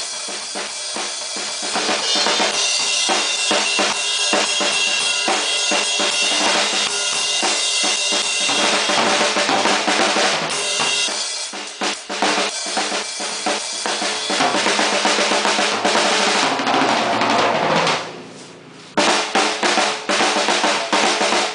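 Acoustic drum kit played hard: quick beats and fills on snare, toms and bass drum under a constant wash of Zildjian cymbals. Near the end the playing drops away for about a second, then a loud hit starts a last burst of drumming that stops at the close.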